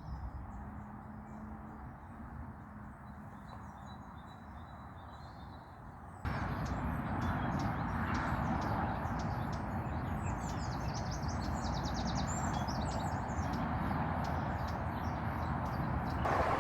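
Steady hum of motorway traffic, which suddenly gets much louder about six seconds in, with small birds chirping and singing over it.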